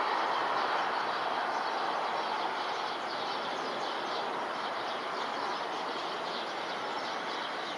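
Embraer 175 jet airliner on final approach overhead, its turbofan engines heard as a steady rushing jet noise that eases slightly about three seconds in.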